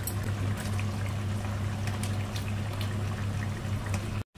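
Thick masala gravy bubbling at a simmer in a kadhai, with scattered small pops over a steady low hum, as paneer cubes slide in from a bowl at the start. The sound cuts out briefly near the end.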